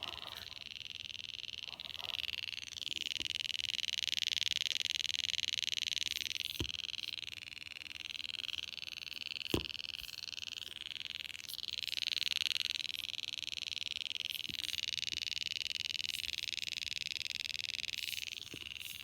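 GoPro Hero 4 action camera giving off a rapid, high-pitched ticking while it charges, a fault sound tied to the charging battery. The pitch wavers, and two sharper clicks come in the middle.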